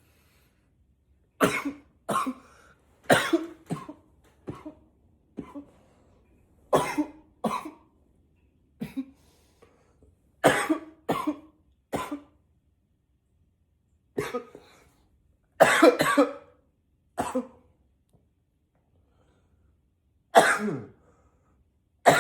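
A man coughing again and again, in single coughs and quick pairs with short pauses between them and a longer pause near the end.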